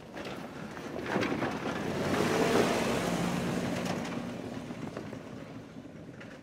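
Off-road truck driving along a dirt trail, its engine and tyre noise swelling to a peak about two and a half seconds in, then fading away.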